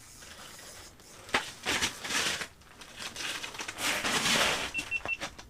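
Rustling, crinkling handling noises with a sharp click, then three quick high beeps near the end.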